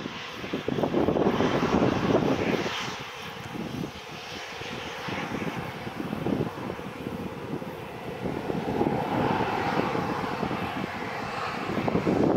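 Airliner engines running, a broad rushing noise with a faint steady whine through the middle, loudest in the first couple of seconds.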